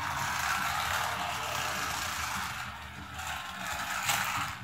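A small battery-powered toy car running along a flexible plastic track, its little electric motor whirring steadily. The sound dips briefly about three seconds in.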